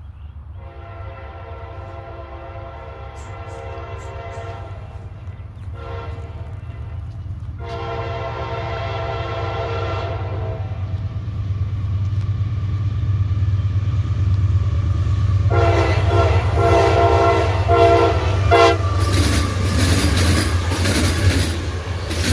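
A CSX freight train's diesel locomotive air horn plays a horn show: a long blast, a short one, another long blast, then a quick string of short toots. Under it the locomotive engine rumbles louder as the train approaches. In the last few seconds the noise of the train passing close by, wheels on the rails, takes over.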